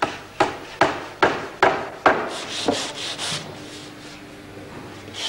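A hammer driving a nail into wood, about six sharp blows in quick succession, followed a couple of seconds in by several hand-sanding strokes rubbing across wood.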